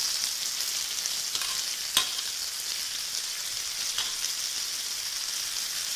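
Chopped onions, garlic, ginger and green chillies sizzling steadily as they hit hot ghee in a kadhai. There is a sharp metal clink about two seconds in and a lighter one near four seconds.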